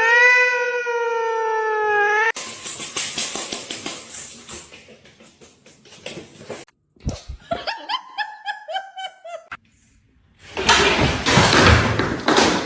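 A long, drawn-out cat meow lasting about two seconds, then scattered clicks and rustling, a quick run of laughter, and a loud noisy rush near the end.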